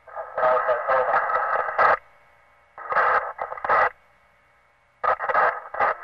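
Police two-way radio chatter: three short, garbled transmissions with a thin, tinny radio sound, separated by gaps of faint hiss.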